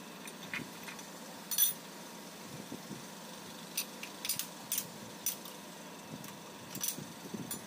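Light metal clicks and clinks of a steel T-slot clamp, nut and bolt being handled and fitted on a milling machine table while the workpiece is clamped down. There are about a dozen small sharp clicks scattered over a faint steady background, the loudest about one and a half seconds in.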